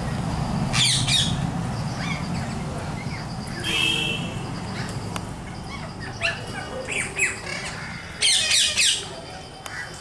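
Rose-ringed parakeets calling in scattered harsh squawks, with the loudest flurry of calls near the end.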